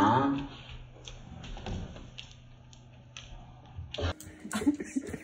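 A voice trails off in the first half second. Then come scattered light clicks and knocks of a clear plastic food container being handled on a wooden floor as a golden retriever noses at it.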